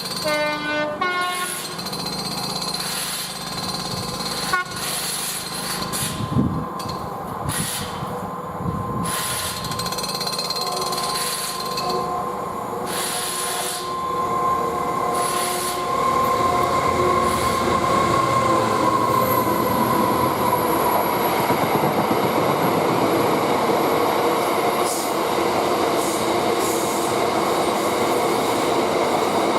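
Class 66 diesel-electric freight locomotive, with its two-stroke V12 engine, sounding its horn and running past at the head of a loaded stone train. The noise grows louder about halfway through as the locomotive and the heavy wagons roll by.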